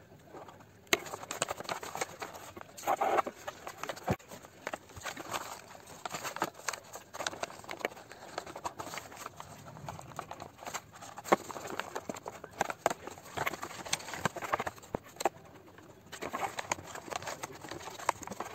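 Paper rustling and crinkling as white paper is folded and pressed around a cardboard box, with many scattered sharp clicks.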